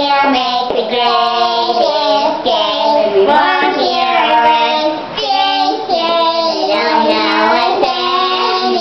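Three girls singing together in helium-altered voices after breathing from balloons, a thin, high, chipmunk-like sound, holding and sliding long notes.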